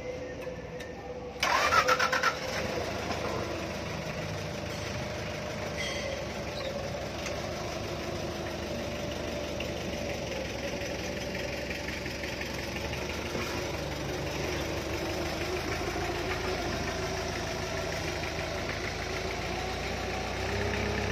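Toyota forklift engine cranking and catching about a second and a half in, then running steadily, its pitch rising and falling a little as the forklift drives.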